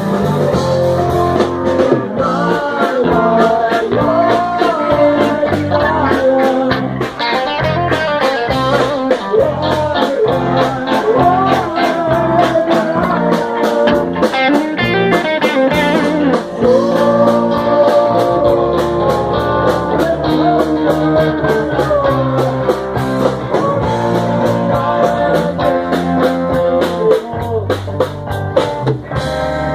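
Live rock band playing an instrumental break: a wavering guitar lead over bass and a steady drum beat.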